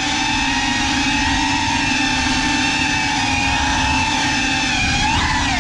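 Small FPV quadcopter's motors and propellers whining steadily, close to the onboard camera, with the pitch dipping and swinging briefly near the end.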